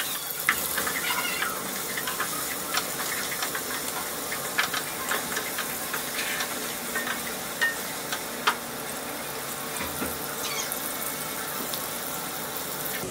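Sliced onions sizzling in hot oil in a steel pot, a steady hiss with scattered crackles and pops as they fry toward brown. A wooden spatula stirs them now and then.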